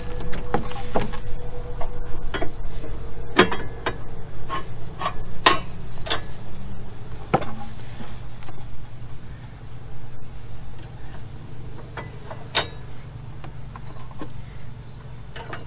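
Scattered metal clanks and taps of pins and fittings being worked as the John Deere 1025R's mower subframe is put back on, loudest in the first half, over steady chirping of insects.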